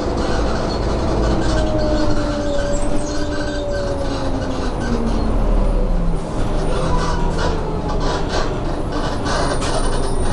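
Renault R312 city bus heard from inside the cabin: its diesel engine and drivetrain drone with a heavy low rumble and a whine that falls steadily in pitch over about the first six seconds as the bus slows, then settles at a lower, steadier note.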